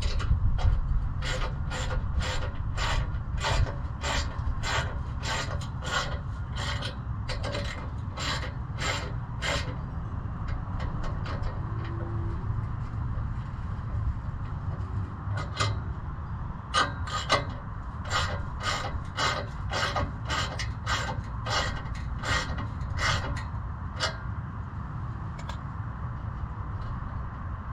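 Ratchet wrench tightening the clamp nuts of an exhaust O2 sensor bung, rasping in quick strokes about twice a second, in two runs with a pause of several seconds between them, over a steady low rumble.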